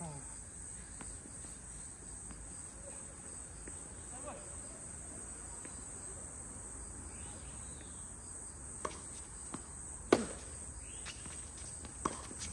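Steady high-pitched chirring of insects, with a few sharp knocks about nine, ten and twelve seconds in, the one near ten seconds the loudest.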